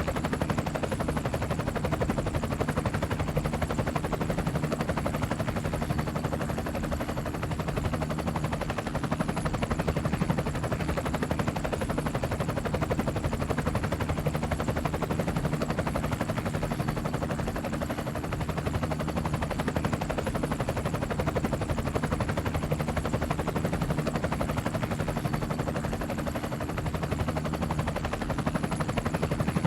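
Helicopter flying, its rotor blades chopping in a steady, rapid beat over a low, steady hum.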